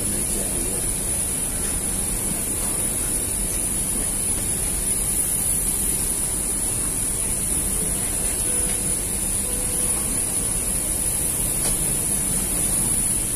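Steady rushing hiss of airliner ventilation at the boarding door, with a thin high whine held over it.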